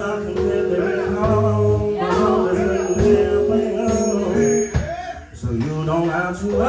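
Music with singing over sustained instrumental chords, with a brief dip in level about five seconds in.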